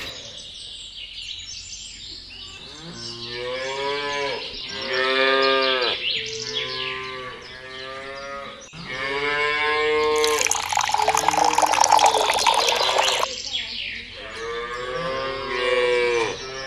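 Cattle mooing: a series of long moos, one after another, with water pouring for a few seconds in the middle.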